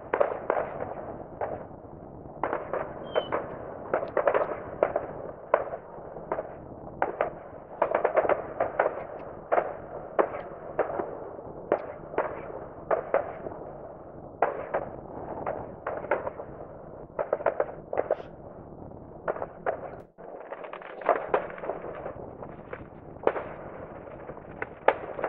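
Distant fireworks set off over several villages at once: a dense, irregular run of sharp bangs and pops, several a second, over a steady background of fainter crackling.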